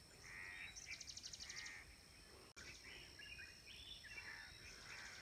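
Faint crows cawing: a series of short caws, with a rapid high trill about a second in.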